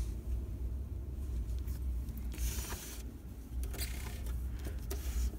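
Handling noise: a steady low rumble with short bursts of rustling and rubbing and a few light clicks.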